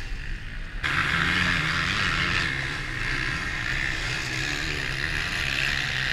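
Motocross dirt bikes' engines running steadily as riders go around the dirt track. The drone comes in abruptly about a second in.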